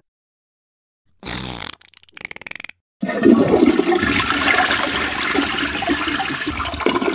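Toilet flushing: a loud rush of water starting about three seconds in and running on for some four seconds, after two short rough noises a little earlier.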